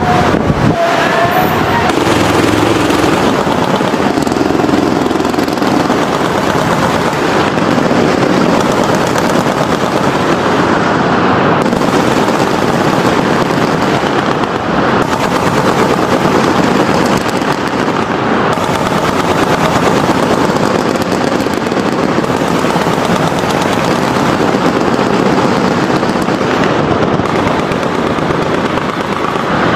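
Sustained automatic gunfire from machine guns firing tracer rounds into the night sky: a dense, unbroken rattle of many rapid shots.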